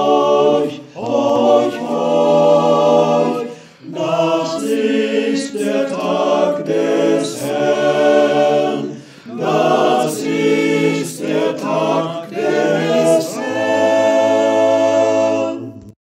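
Men's choir singing a cappella, its voices recorded separately and mixed into one virtual choir, phrase after phrase with short breaks between them. It closes on a long held final chord in the last couple of seconds.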